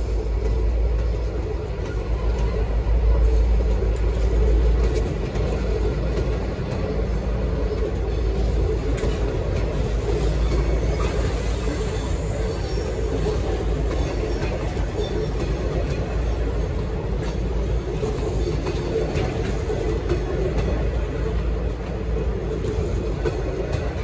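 Locomotive-hauled V/Line passenger carriages rolling past close by as the train departs, with a steady low rumble of wheels on the rails that swells slightly a few seconds in.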